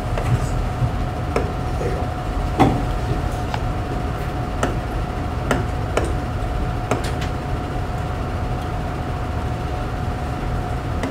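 Room tone: a steady hum and low rumble, with about ten scattered light clicks and taps, mostly in the first seven seconds.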